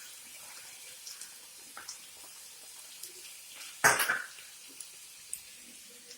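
Half-cooked chicken pieces cooking in a pan with a faint steady hiss and a few small ticks. About four seconds in there is one short, loud knock.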